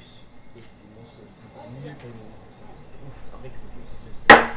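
Crickets trilling in one steady, unbroken high tone, with faint voices murmuring underneath. About four seconds in, a single sharp, loud knock rings out.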